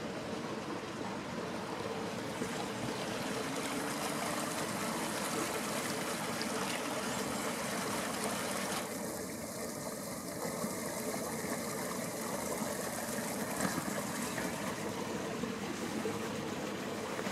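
Spring water running steadily along a narrow channel in the travertine rock.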